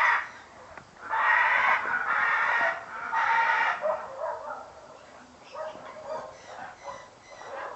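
Large caged parrot screeching: one harsh scream ends just after the start and three more follow in quick succession between about one and four seconds in. Fainter, thinner bird calls follow after that.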